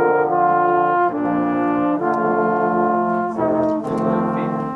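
Six trombones playing together in harmony: held chords that move to a new chord about once a second.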